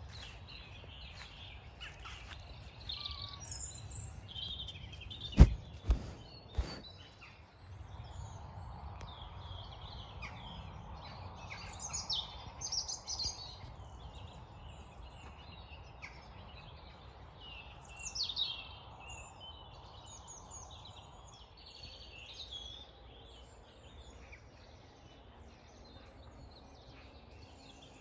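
Dawn chorus of several songbirds, with many short chirps and trills overlapping, over a low steady rumble. Three sharp knocks come close together about five to seven seconds in.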